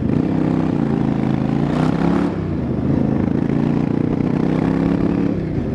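Yamaha Virago XV1100's air-cooled V-twin engine running, the revs rising briefly about two seconds in and dipping near the end. The engine has an intermittent cough and splutter through one cylinder, which the owner traced to a faulty regulator rectifier.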